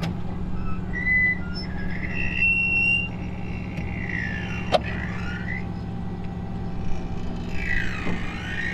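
Tow truck winch cable under heavy load through a snatch block, squealing and creaking in high gliding tones with one sharp snap about halfway through, over a steady truck engine drone. This sound usually means the cable is stretching.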